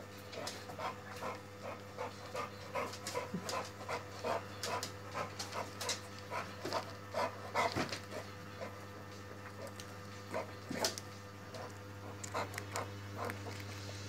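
Bullmastiff panting in quick, uneven breaths, about two or three a second, which break off for a few seconds past the middle and then return briefly. A single sharp click comes a little before the panting returns.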